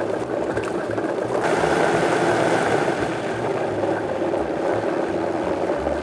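Countertop blender motor running at high speed, puréeing rice, onion and liquid into a smooth slurry: a steady whirring with churning liquid, slightly brighter about a second and a half in.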